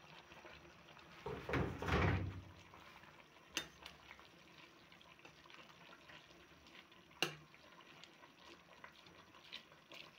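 Utensil stirring rice noodles into broth in a metal pot: a loud rustling scrape about two seconds in, then several sharp clinks of the utensil against the pot.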